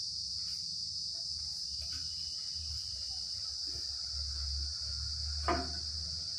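Steady, high-pitched chirring of insects, unbroken throughout, over a low steady hum. A single sharp knock comes about five and a half seconds in.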